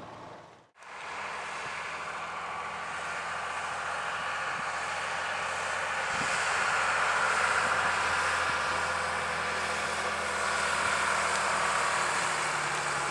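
Vintage double-decker bus driving past, its engine growing louder to a peak about halfway through and staying strong.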